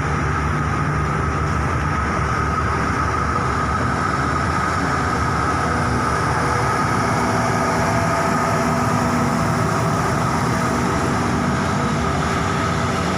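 Diesel train running steadily: a low engine hum with a steady high-pitched whine over it.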